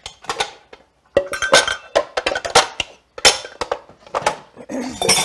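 Glass bowl and kitchenware clinking as they are handled: an irregular run of sharp clinks and knocks.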